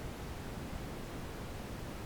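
Steady brown noise: an even, unbroken hiss weighted heavily toward the low end, like a deep rumble with little treble.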